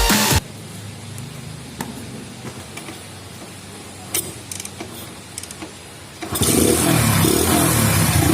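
A few light clicks and knocks, then about six seconds in a Hero Honda Splendor Plus's single-cylinder four-stroke engine starts and runs loud, breathing through an open intake with its air filter removed.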